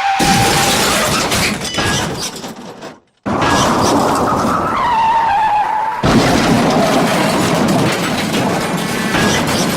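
Car tyres squealing into a crash sound effect of smashing and breaking. After a short cut to silence around 3 s, there is another tyre squeal, then a second crash about 6 s in.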